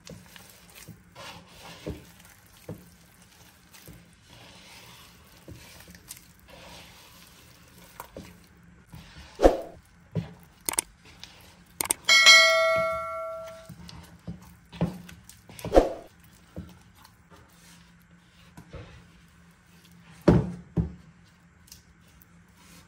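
A spatula and hand mixing sticky bread dough in a wooden bowl, with scattered knocks against the bowl. About halfway through, a click and a bell-like ding ring out and die away over about a second and a half: the sound effect of a YouTube subscribe-button animation.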